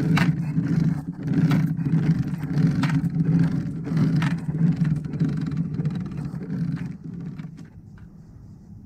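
Boat anchor being hauled up by hand, with a short metallic clink from the anchor chain at each pull, about one a second, over a steady low rumble. The rumble and clinking stop about a second before the end.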